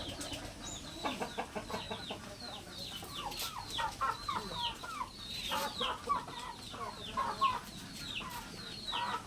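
Aseel chickens clucking continuously, with many short, high, falling chirps mixed in throughout.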